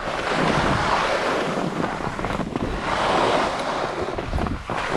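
Skiing over hard, icy snow: a steady scraping rush that swells and eases a few times, with wind buffeting the microphone.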